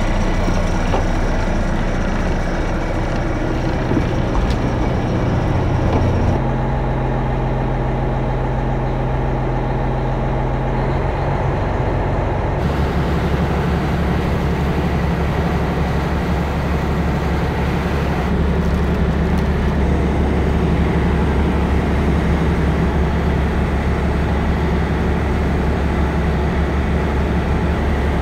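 Fishing boat's engine running steadily under way, with the rush of water from the hull and wake. The engine note shifts abruptly about six and about twelve seconds in.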